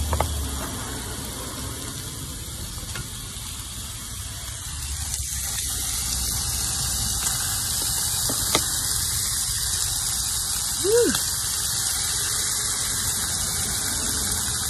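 Steady high hiss of bacon strips sizzling in a skillet, a little louder from about five seconds in. A short high squeak that rises and falls comes about two-thirds of the way through.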